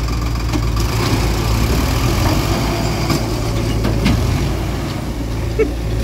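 Diesel engine of a JCB 3DX backhoe loader running steadily, with a few short knocks on top.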